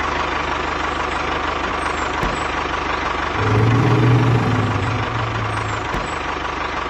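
Heavy construction-machine engine running steadily with a noisy rumble; a deeper engine tone swells in about three and a half seconds in, then eases off.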